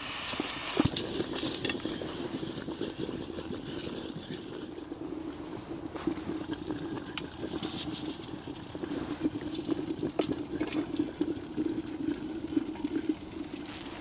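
Kelly Kettle's whistle cap shrilling as the water boils, its pitch slowly rising, cut off suddenly less than a second in. Then the stainless steel kettle is handled with light metal clinks and knocks over a steady low rumble.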